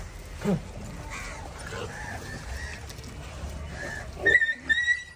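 Stray dogs vocalising at a feeding: a short low call, then two sharp high yelps near the end.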